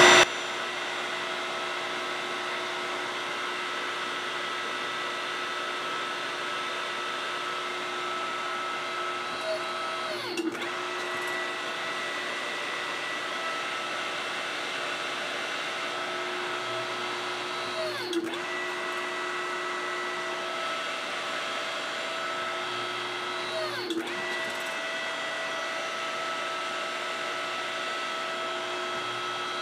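Hydraulic press pump motor running steadily with a humming whine while it presses a silver blank into an impression die. Its pitch sags briefly and recovers about four times, as if the pump is loading up.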